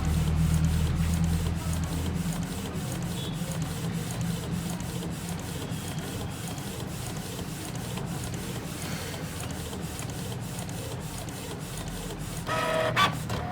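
Canon Pixma G1020 inkjet printer printing a photo on glossy photo paper: a steady mechanical running of its paper feed and print mechanism, louder in the first couple of seconds.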